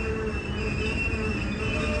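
BNSF freight train rolling slowly with its brakes applied: the brakes squeal in several steady, piercing tones at once over the low rumble of the wheels on the rails.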